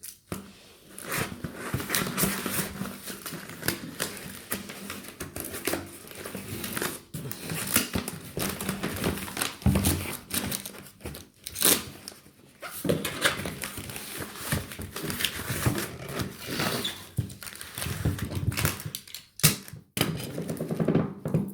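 Brown packing tape being pulled off the roll and pressed down on a cardboard box, with crinkling and rubbing of the tape and cardboard, in several pulls with short breaks between.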